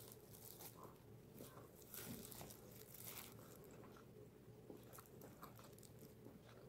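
Faint sounds of a person biting into and chewing a bread sandwich filled with spaghetti, egg and fried croquette, heard as scattered soft clicks.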